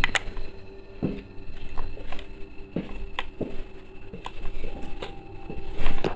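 Footsteps and scuffs on a gritty concrete floor: irregular taps and small crackles underfoot as someone walks slowly down a narrow corridor, in a small echoing room sound.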